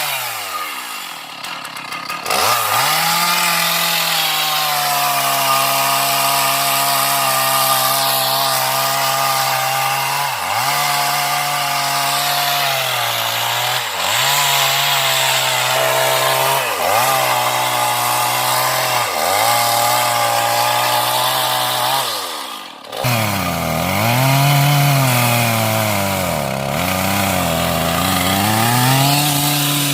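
Two-stroke chainsaw cutting into the flared buttress at the base of a large mahogany tree. The engine is held at high revs and dips briefly under load every few seconds. About three-quarters through it drops almost to idle, then revs up and down unevenly.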